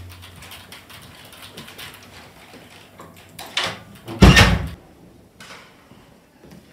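A door closing: a sharp knock about three and a half seconds in, then a heavy thump that is the loudest sound.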